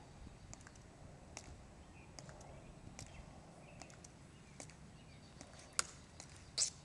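Metal-tapped shoes of ceremonial Tomb Guard sentinels clicking on the stone plaza in a slow, measured march, about one step every 0.8 seconds. Two louder, sharper clicks come near the end.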